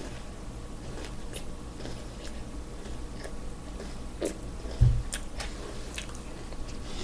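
Close-up chewing of a milk-dunked candy corn Oreo cookie, with scattered small wet clicks from the mouth. A single low thump about five seconds in.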